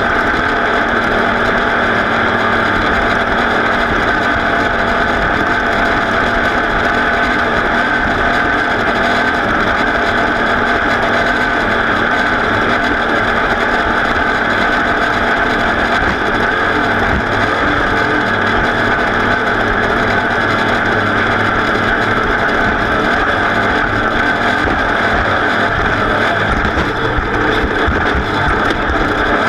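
Racing vehicle's engine running hard and steadily, holding an almost constant pitch throughout.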